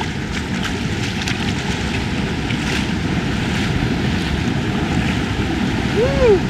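Swollen creek water rushing across and over the edge of a flooded low-water bridge, running high after heavy rain, with irregular splashes from wading steps. A short tone that rises then falls sounds about six seconds in.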